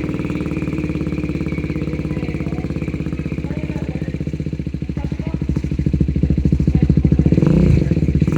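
BMW G310R's single-cylinder engine idling through an aftermarket slip-on exhaust, with a steady, even pulse that grows a little louder near the end.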